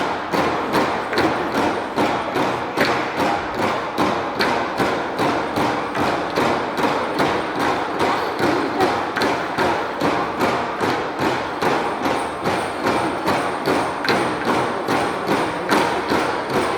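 Bamboo poles of a bamboo-pole dance knocked together and against the base poles in a steady, even rhythm of about three sharp knocks a second.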